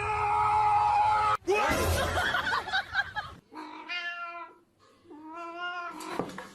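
Cat meowing. A long meow cuts off suddenly about a second and a half in, and two more drawn-out meows follow, each about a second long.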